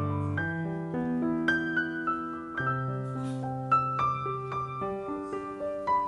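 Background piano music: a slow melody of single struck notes over long held bass notes.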